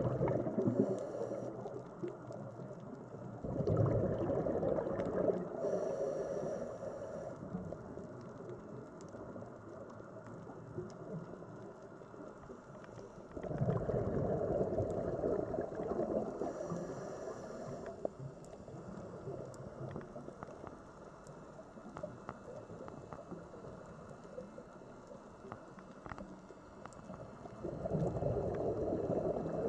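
Scuba diver breathing underwater through a regulator: four bursts of exhaled bubbles, each a few seconds long, rumble and gurgle past the camera, with quieter water noise between them.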